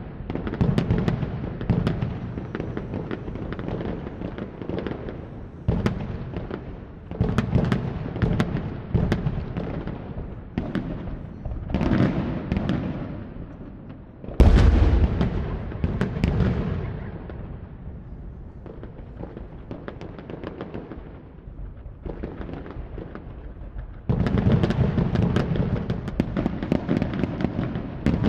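Fireworks going off: rapid sharp bangs and crackling pops. About halfway through comes one big deep boom that fades slowly, followed by quieter scattered crackles, then dense crackling again near the end.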